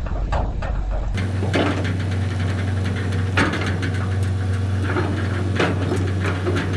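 Skid steer's diesel engine running steadily, with scattered sharp knocks and clanks over it. The engine hum comes in about a second in.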